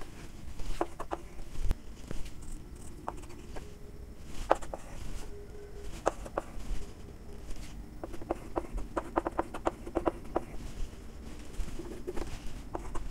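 Chalk writing on a blackboard: a string of sharp taps and short scrapes as figures are written, with a quick run of taps about two-thirds of the way through.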